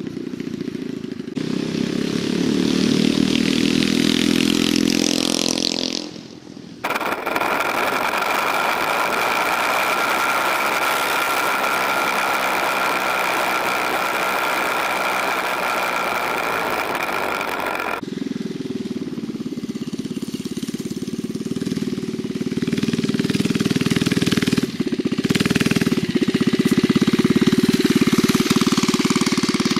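Small 79cc single-cylinder engine of a homemade motorized scooter, running through its custom-made header pipe while the scooter is ridden. It revs up in the first seconds. From about seven to eighteen seconds it is heard close up at a steady speed with a steady whine and rushing wind, and after that it runs steadily again.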